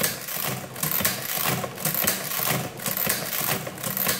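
1909 Dalton adding machine's mechanism being cycled over and over, a clattering mechanical stroke about once a second. The ribbon-drive ratchet, bent back into place, turns the ribbon shaft on each cycle.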